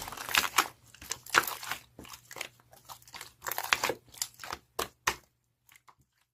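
Irregular crinkling and crackling, like packaging being handled, stopping about five seconds in.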